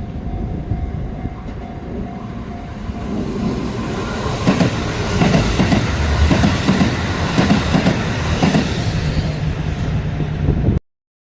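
A Sanyo Electric Railway train passing close by. The rumble builds, and from about four seconds in the wheels clack loudly over the rail joints before easing off. The sound cuts off abruptly near the end.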